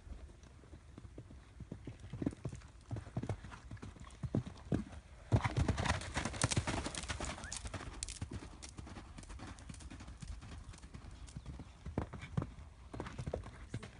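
Hoofbeats of a horse cantering on a sand arena, a rhythmic series of dull thuds. They are loudest from about five to eight seconds in as the horse passes close, and fainter before and after as it moves away.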